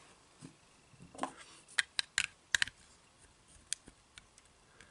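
Sharp plastic clicks and taps from handling a plastic toy sonic screwdriver as its detachable bottom section is fitted back onto the body. There is a quick run of clicks about two seconds in, then a few single ones.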